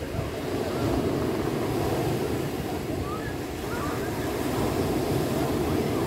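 Sea surf breaking and washing onto a stony beach, swelling about a second in and again near the end.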